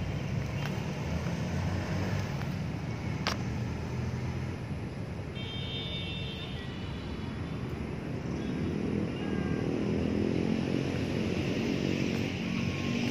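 Street traffic: a steady low rumble of passing vehicles. A brief high whine comes about five seconds in, and from about eight seconds an engine grows louder as a vehicle passes.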